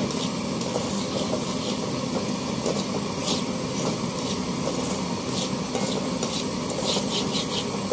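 Kerosene pressure stove burner running with a steady rushing hiss, while a perforated metal ladle stirs dry semolina in a metal pan with intermittent short scraping strokes as it is dry-roasted.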